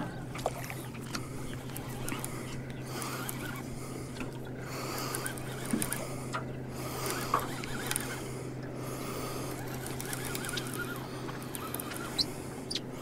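Boat motor running at a steady low hum, with scattered light clicks and a couple of short high squeaks as a large catfish is played on rod and reel.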